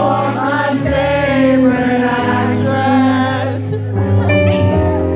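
Live band playing, with a male lead vocal singing held, gliding notes over sustained bass notes.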